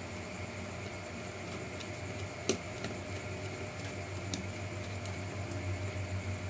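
Small hard plastic-and-metal clicks from parts being handled while fitting an RC crawler's inner fender liner: one sharp click about two and a half seconds in and a fainter one a couple of seconds later, over a steady low room hum.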